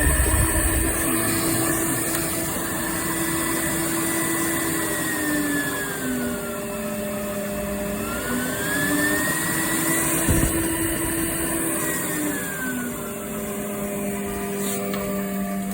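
Vacuum cleaner motor running steadily, its pitch sliding down about five seconds in, rising again around eight seconds, and dropping once more near the end.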